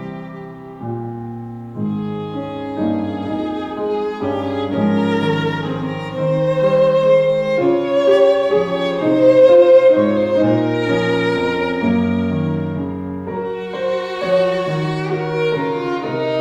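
Classical-style music with a violin melody over piano and low string accompaniment, swelling louder toward the middle.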